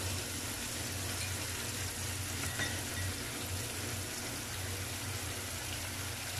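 Marinated prawns shallow-frying in oil over a low flame, a steady sizzle with a low hum beneath it.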